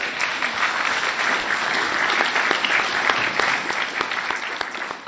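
Audience applauding, a dense run of hand claps that starts suddenly and begins to die away near the end.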